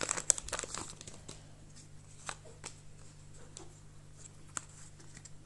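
Pokémon trading cards handled and shuffled together: a quick flurry of card flicks and rustles in the first second or so, then a few scattered light clicks and taps.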